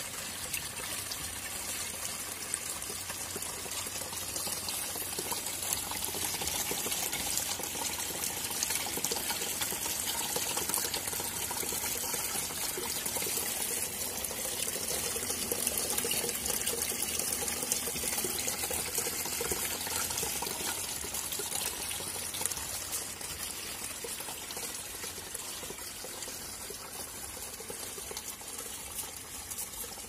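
Water pouring in a steady stream from a homemade fountain of cut plastic containers, splashing into the container below.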